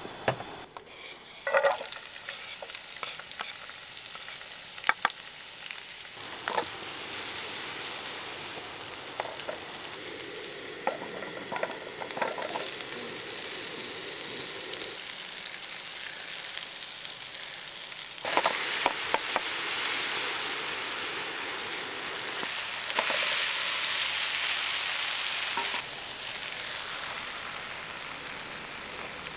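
Food sizzling in a frying pan, with scattered clicks and scrapes of a utensil stirring it. The sizzle changes level a few times; it is loudest shortly before the end, then drops suddenly.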